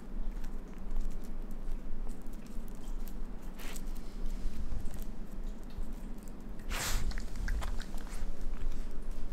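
A raccoon chewing insects close to the microphone: many small wet clicks and smacks from its mouth. A brief louder burst of noise comes about seven seconds in.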